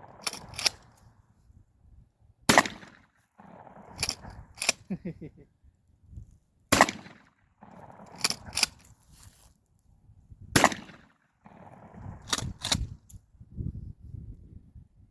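Gun firing bird shot at a target: a string of sharp shots, the loudest about every four seconds, with fainter cracks in between.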